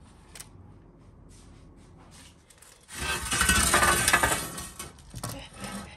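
Dishes and utensils being handled: light scattered clinks and taps, then a louder scraping rub lasting about a second and a half about halfway through.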